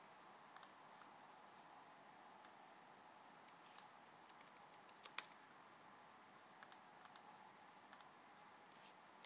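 Faint, scattered clicks of a computer mouse and keyboard, about a dozen spread over several seconds, over near-silent room tone.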